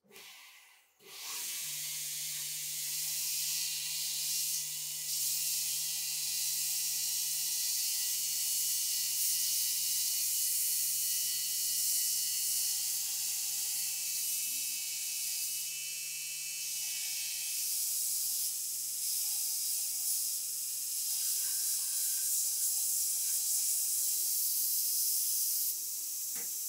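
A steady spraying hiss over a low steady hum, starting about a second in.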